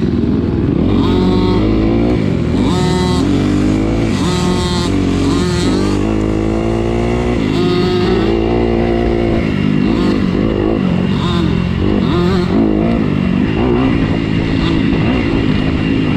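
Dirt bike engine running hard on a trail, its pitch climbing and dropping again and again as the rider throttles up and backs off through the gears.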